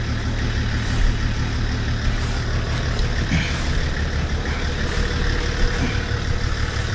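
Nissan GQ Patrol's TD42 straight-six diesel running steadily at idle while its electric winch pulls the vehicle along a slippery clay track under remote control.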